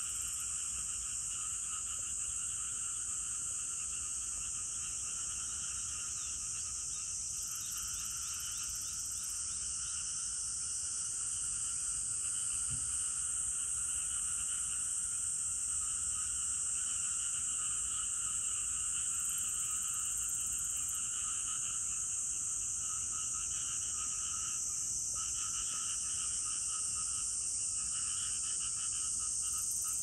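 Dense, unbroken chorus of calling insects: a continuous high, shrill hiss, with a lower, pulsing trill beneath it that thins out briefly once or twice.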